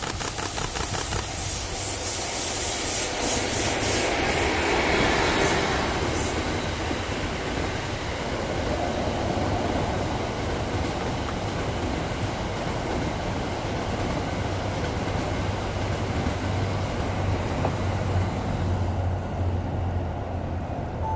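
An EF81 electric locomotive and its train of E26-series sleeper coaches passing at speed. A rhythmic clatter of wheels over rail joints comes in the first few seconds, then a steady rolling rush with a low rumble, which dulls near the end as the last coach goes by.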